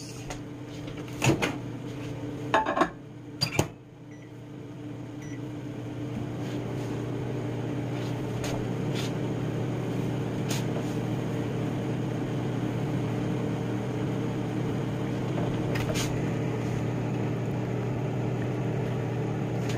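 A few clicks and knocks, then a microwave oven running with a steady hum that sets in about four seconds in and holds.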